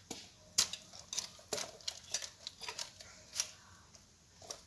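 Thick cake batter being scraped out of a clear jug into a parchment-lined cake pan: a handful of short, irregular clicks and taps of the utensil against the jug, about one every half second.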